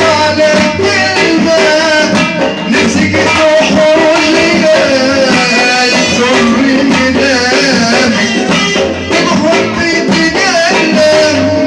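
Tunisian folk song: an ornamented, wavering melody line with singing over a steady percussion beat.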